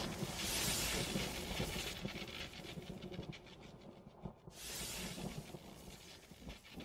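Sound effects of an animated channel-logo outro: noisy swells that rise about half a second in and again around four and a half seconds, dying away in between.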